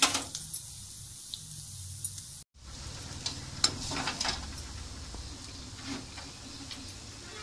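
Coriander seeds, cumin and other whole spices sizzling in a little oil in a black iron kadai, with a steel slotted spoon scraping and stirring them across the pan in the second half. The sound drops out for a moment after about two and a half seconds.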